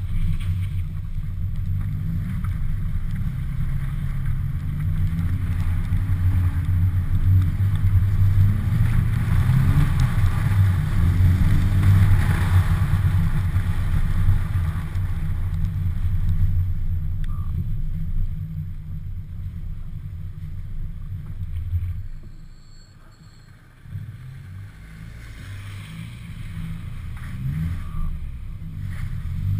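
Volvo 740 GL engine running under load, heard through a camera on the hood, rising in pitch several times as the throttle is pressed. About twenty-two seconds in it falls away sharply as the throttle is lifted, then climbs back with a few short revs near the end.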